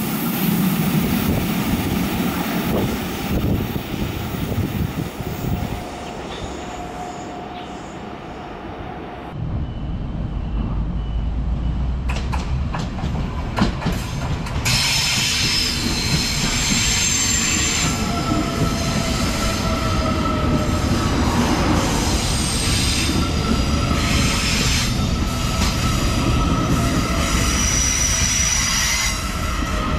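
Electric trains running slowly through a tight curve, with a steady rumble of wheels and running gear. There are a few sharp clicks about halfway. After that, a commuter train's wheels squeal in thin, high, steady tones as it rolls past: flange squeal from the sharp curve.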